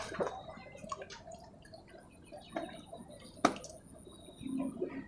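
Water splashing and dripping as a hooked patin (striped catfish) is worked into a landing net at the pond's edge, with a sharp click about three and a half seconds in.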